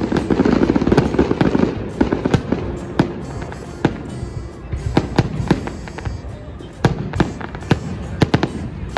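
Aerial fireworks display: a dense run of bangs and crackling for the first couple of seconds, then separate sharp bangs, a few every second.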